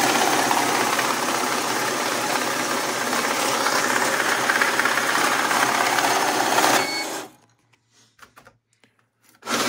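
Cummins JetScan currency counter running, its rollers pulling a stack of dollar bills through with a steady fast whirring and fluttering. About seven seconds in it gives a short beep and stops abruptly; a few light clicks follow, and it starts running again just before the end.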